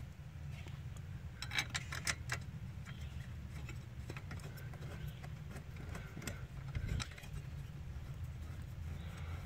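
A few light metal clicks and clinks of small bolts and tools being handled, in a cluster about two seconds in and once more near seven seconds, over a steady low hum.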